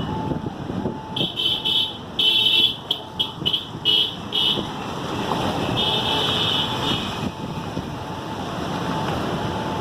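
Vehicle horns honking in a series of short shrill blasts, several in quick succession, then one longer toot about six seconds in, over a steady rushing noise.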